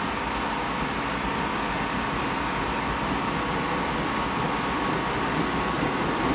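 NYC Subway R160B (Alstom-built) train approaching and rolling by on a nearby track, a steady running noise that grows slowly louder as the cars draw alongside.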